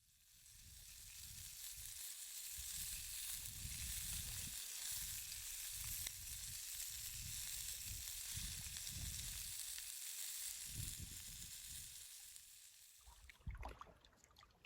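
Trout frying in a pan: a steady sizzle that fades out a second or two before the end, with irregular low rumbles underneath and a few faint clicks near the end.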